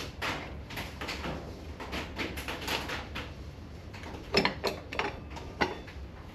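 Rear wheel of a Harley-Davidson Dyna Super Glide being slid and rolled out of the swingarm by hand: irregular scraping and clicking, with a few sharper metal clunks about four and a half to five and a half seconds in as the brake caliper slides out of its groove.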